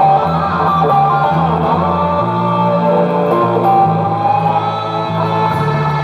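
Electric guitar played through an amplifier: a lead line of single notes with string bends and slides, over sustained low notes that change every second or two.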